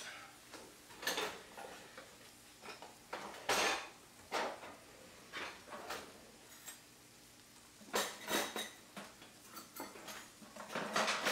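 Kitchen utensils clinking and clattering as someone rummages through them: a scatter of separate knocks, the loudest about three and a half seconds in and a quick cluster near the end.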